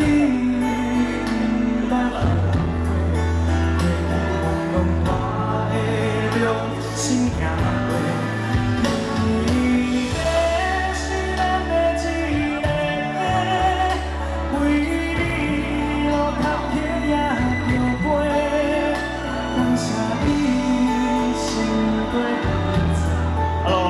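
A male singer singing a slow pop ballad live over a loud amplified accompaniment with a deep bass line and cymbals, holding notes with vibrato.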